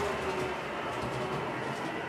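Model electric 'L' train running along the layout track, moving away: a steady running noise with faint clicks of wheels over the rail joints. A motor hum fades out about half a second in.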